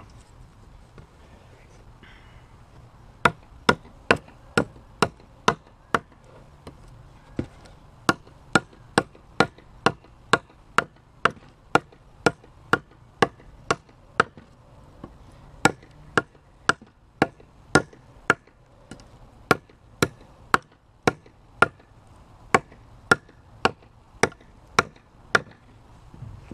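Dawson Raider 5 fixed-blade knife chopping into a wooden stick: sharp knocks of the blade biting the wood, about two a second, in runs with short pauses, starting a few seconds in.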